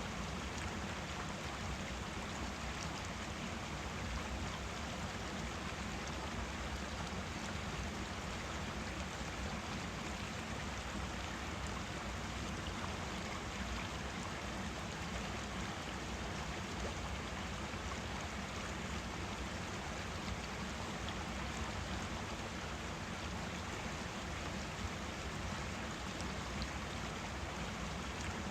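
Forest stream running over rocks, a steady rushing and gurgling of water.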